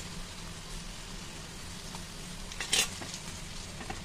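Sliced onions and masala sizzling steadily in a hot steel kadhai. A single short, sharp clatter comes about three-quarters of the way through.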